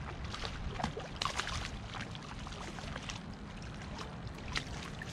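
Hooked black drum splashing at irregular moments in shallow water at the shoreline, over a steady rumble of wind on the microphone.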